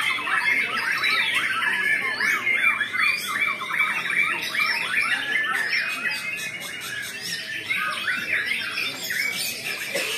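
Many caged white-rumped shamas (murai batu) singing at once in a contest: a dense, unbroken tangle of overlapping whistles, rising and falling glides and rapid chattering phrases.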